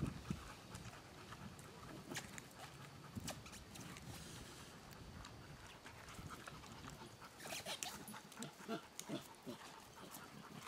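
A domestic pig biting into and chewing a whole pumpkin: uneven crunches and chomps, with a denser run of crunching about three-quarters of the way through.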